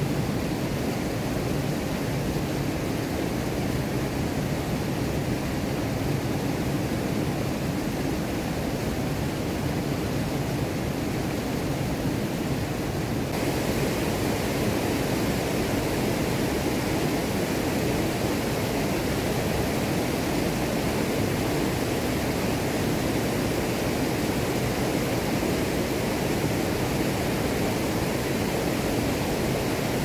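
Waterfall: a steady rush of falling water that turns brighter and hissier about thirteen seconds in.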